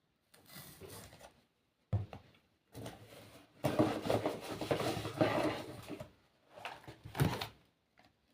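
Packaging and products being handled during an unboxing: rustling with a few sharp knocks, the densest rustling about four to six seconds in.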